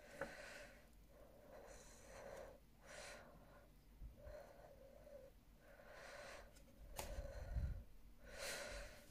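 Breathing close to the microphone, about six slow breaths in and out, which the uploader calls loud. A couple of light clicks and a low bump from photocards being handled.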